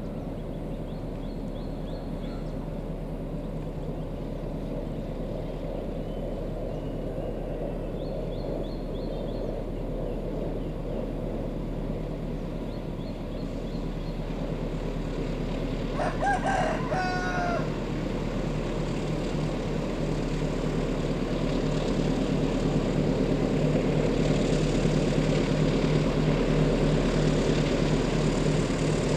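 Diesel-electric locomotive engine running with a steady hum that grows louder as the train approaches. A rooster crows once a little past the middle.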